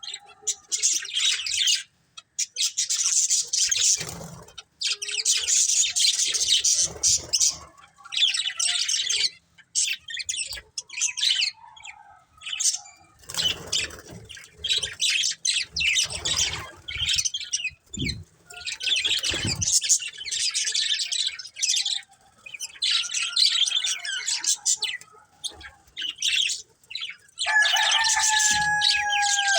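Budgerigars chattering and chirping in rapid bursts, with a few soft low thumps. Near the end one bird gives a clear held whistle that drops in pitch as it ends.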